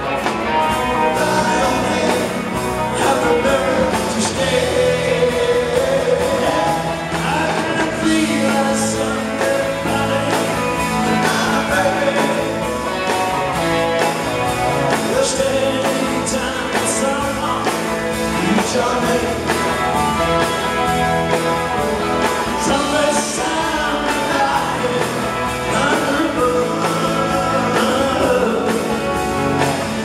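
A live rock band playing, with a man singing lead over electric guitar and bass.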